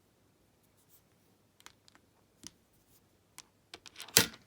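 Small brass padlocks being handled: scattered light clicks and taps, then one louder knock near the end.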